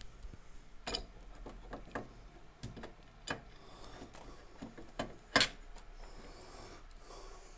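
Handling noise: a few sharp clicks and knocks from small hard parts being handled and fitted, with faint rustling in between, the loudest knock a little after five seconds in.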